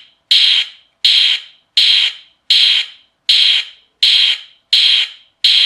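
Plastic toy gun's electronic sound effect played through a substitute speaker on jumper leads: a harsh, hissy burst that starts sharply, fades quickly and repeats about every three-quarters of a second. Not exactly a realistic sound. The circuit works, which points to the toy's own suspected dead speaker as the fault.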